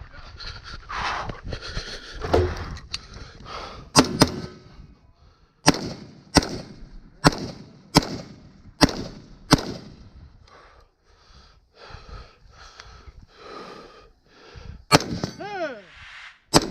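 Gunshots on a three-gun match stage: a string of about seven shots less than a second apart, a pause, then two more near the end. A falling metallic ring follows the last shots, typical of steel targets being hit.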